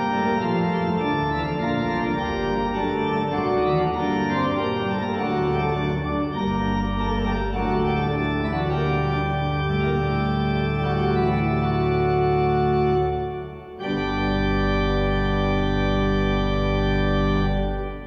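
2010 Holtkamp pipe organ playing a 17th-century Italian keyboard sonata: moving lines over held bass notes. About fourteen seconds in there is a brief break, then a long final chord is held and released near the end.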